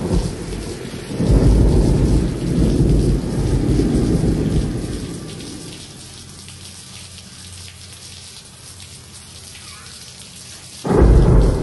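Recorded thunderstorm: rain falling steadily, with a rumble of thunder about a second in that dies away over a few seconds, and a sudden thunder crash near the end.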